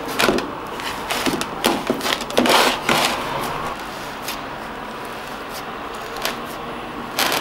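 Fingertips pressing and dimpling soft, oiled pinsa dough in a metal baking pan, with a few short wet pressing sounds in the first three seconds, then quieter handling.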